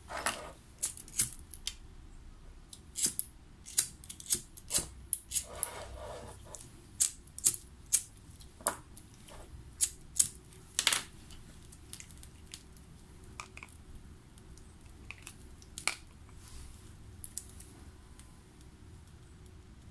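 Irregular sharp clicks and taps of metal hand instruments working on a dental model during the wax-up of a bruxism splint, with a short rasping scrape about five and a half seconds in. The clicks come thick and fast for the first eleven seconds or so, then only now and then.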